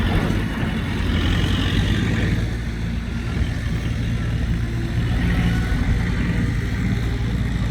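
Farm tractor's diesel engine running steadily under way.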